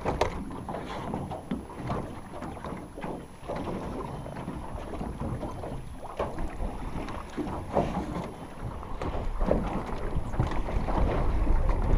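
Small choppy waves lapping and slapping against the hull of a small open boat, with wind buffeting the microphone, the wind rumble growing louder near the end.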